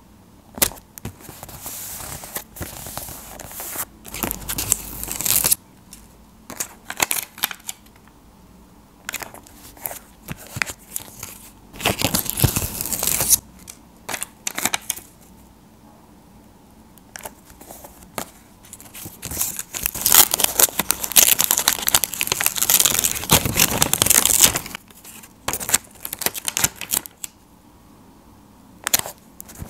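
Paper cutouts being handled and stuck down in a spiral sketchbook: paper rustling and rubbing in short irregular spells, with a longer, louder spell of about four seconds about two-thirds of the way through.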